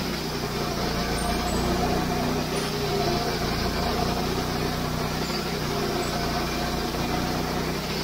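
Wood-Mizer LX150 band sawmill running steadily under load, its engine and band blade sawing through a row of softwood rounds stood on end to slice them into cookies.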